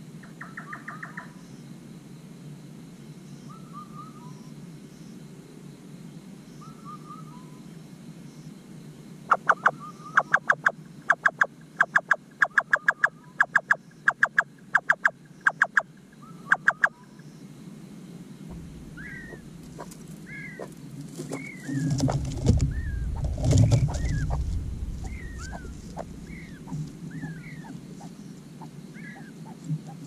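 Nightjar calling: a loud run of evenly spaced knocking 'chuck' notes, about two to three a second for some eight seconds. Short slurred chirps and a low rumble follow near the end.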